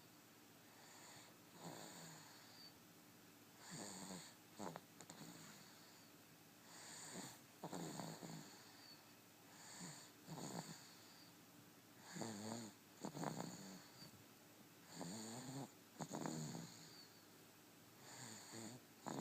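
Snoring: noisy, rasping breaths through the nose in a slow, regular rhythm, one about every two to three seconds. The snores are louder from about eight seconds in.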